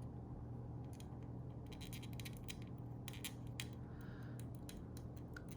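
Light plastic clicks and taps as a small action-figure sword sheath and accessories are handled and worked into place, coming in a quick, irregular run from about a second and a half in, over a low steady hum.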